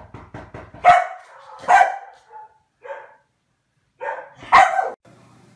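Dog barking: about five barks spread over a few seconds, the first coming after a few quick faint ticks.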